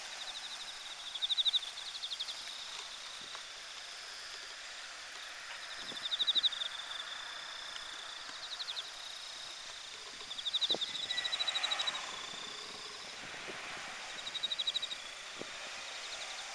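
Night-time insect chorus of crickets singing: short, rapidly pulsed high trills that recur every few seconds over a steady high background chirring.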